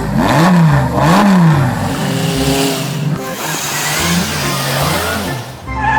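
Car engine revving up and down repeatedly, a dubbed-in engine sound effect for a driving vehicle.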